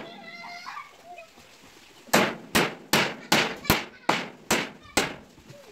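Hammer driving a nail into the cage's frame: eight sharp, even strikes at about two and a half a second, starting about two seconds in after a short pause.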